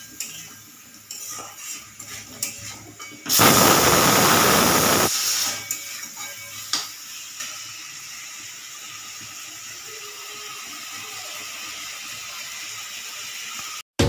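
Aluminium pressure cooker's weighted whistle valve blowing off steam: a loud hissing whistle bursts out about three seconds in and lasts nearly two seconds, then a softer steady hiss carries on. A few light clicks come before the burst.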